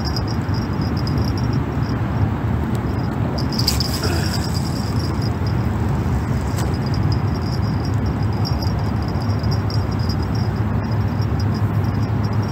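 Steady low outdoor rumble, with faint high-pitched chirping over it and a brief hiss about four seconds in.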